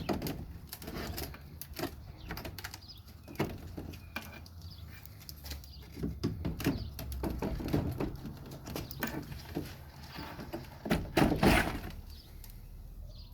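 Wooden beehive frames being pried and worked loose from a dead hive that is stuck fast: irregular scraping, creaking and knocking of wood, loudest about eleven seconds in.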